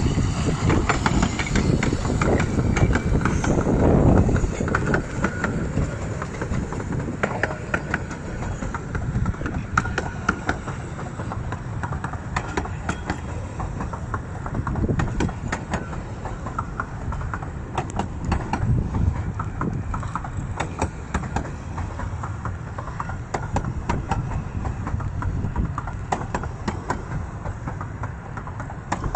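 Miniature steam train of the 15-inch gauge Romney, Hythe and Dymchurch Railway passing close by. The locomotive's rumble is loudest about four seconds in, then the coaches follow with a run of sharp clicks and rattles over the rail joints, easing off near the end.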